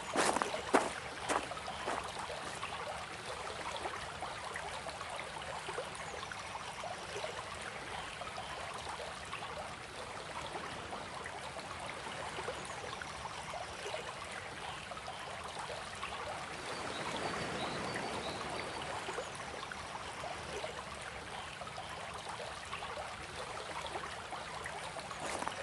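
Stream water flowing steadily, with a few sharp knocks in the first second or so and a slight swell past the middle.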